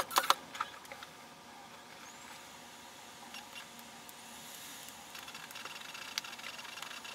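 MacBook Pro's slot-loading DVD drive taking in and spinning up the Snow Leopard install disc: a few sharp clicks at the start, then a faint steady whir that grows a little louder, with more clicks near the end as the disc mounts.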